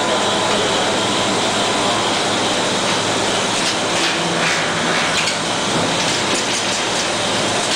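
Rotary pouch filling and capping machine running: a steady mechanical hiss and hum, with light clicks scattered through the middle.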